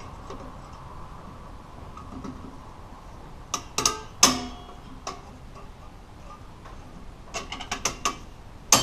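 Sharp metallic clicks and clinks of rear drum brake shoe springs and hardware being worked off by hand. They come in a cluster about three and a half seconds in and another near the end, the last one loud and ringing briefly.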